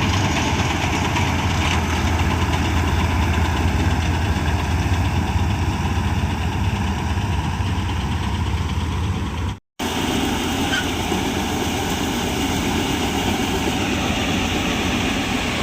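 Combine harvester running steadily while harvesting wheat, a dense engine and machinery drone with a strong low hum. It cuts out for an instant about ten seconds in, then carries on with less low hum.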